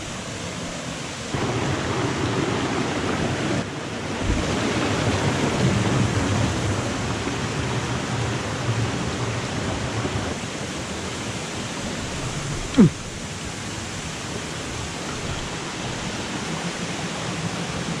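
Meenmutty waterfall's falling water rushing in a steady, loud hiss that steps up about a second in. A short downward-sliding sound cuts through it once, about thirteen seconds in.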